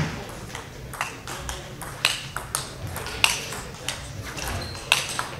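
Table tennis rally: sharp, short clicks of the ball striking the bats and bouncing on the table, a hit or bounce roughly every half second to second.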